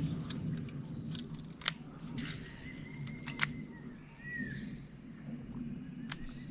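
A few sharp clicks and knocks, the loudest about halfway through, over a steady low hum and a faint steady high whine, with a faint short whistle near the middle.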